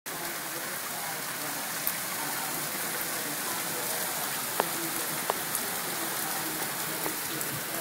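Heavy rain falling steadily as an even hiss, with a few sharp drops striking close by.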